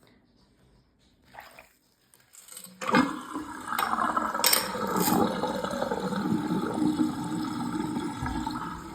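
Tap water is turned on about three seconds in and runs steadily, splashing into a filling basin.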